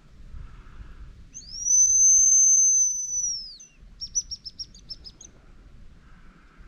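Hazel grouse decoy whistle imitating the male's song. It gives one long, loud, thin high whistle that rises at the start and drops away at the end. A quick trill of about eight short high notes follows.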